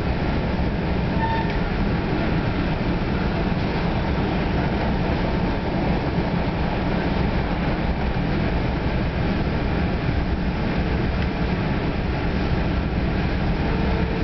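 Steady low rumble and rail noise heard inside a New Jersey Transit Comet VI multilevel passenger coach running along the track.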